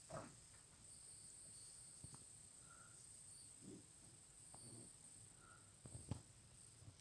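Near silence: a faint steady high hiss with a few soft clicks and rustles, the strongest about six seconds in.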